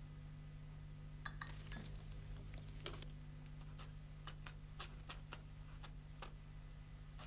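Quill pen scratching across paper in a run of short strokes, starting about a second in and stopping about a second before the end, over a faint steady low hum.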